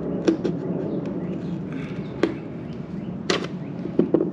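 A screwdriver working in a boat-deck cleat hole, digging at tough cured adhesive sealant. It gives a scatter of sharp metal clicks and knocks, the loudest a little past three seconds in, over a steady low hum.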